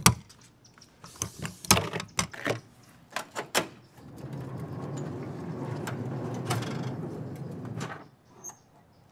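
A metal latch on a diamond-plate aluminium compartment door clicks open, followed by several clicks and knocks as the door is opened. Then the stainless steel slide-out kitchen rolls out on its rails with a steady rumble for about four seconds, stopping about eight seconds in.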